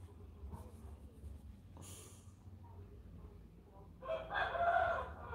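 A loud, drawn-out animal call with several pitched tones stacked together, lasting about a second and starting about four seconds in, over low room noise.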